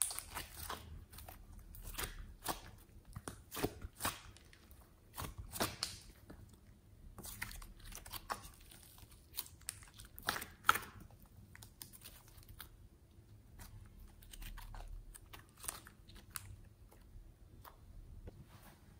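Soft clay-like slime squished, kneaded and twisted by hand, giving irregular sticky crackles and small pops, dense at first and sparser in the second half.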